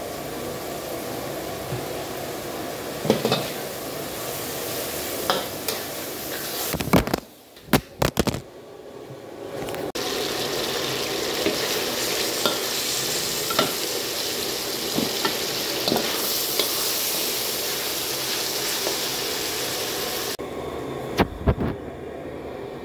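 Pork and garlic sizzling in a hot carbon-steel wok as sauce goes in. A metal ladle scrapes and knocks against the wok while the meat is stir-fried. The sizzle drops away briefly about a third of the way in, then returns louder.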